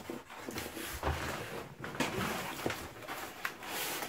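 Cardboard box flaps being pulled open and handled: rustling and scraping of cardboard, with a few light knocks.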